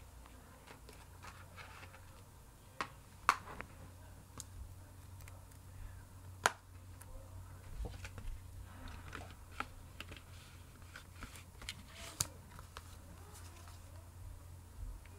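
Plastic Blu-ray case being handled: scattered light clicks and taps, with a few sharper clicks about three, six and twelve seconds in, over a steady low hum.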